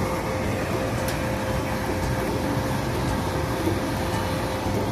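Ball-pit blower machine running steadily: a constant rush of air with an even hum, blowing plastic balls up.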